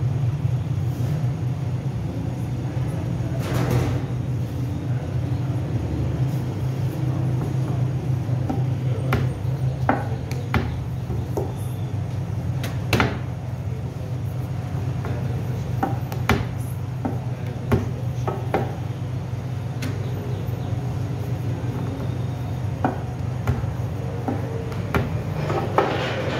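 A steady low hum, with scattered sharp knocks and clicks throughout.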